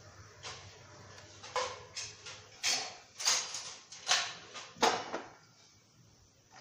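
A frying pan is shaken and slid back and forth on a gas burner's grate, with the dried coconut pieces inside sliding and rattling. The sound comes as a series of about eight short swishes and scrapes, which stop about five seconds in.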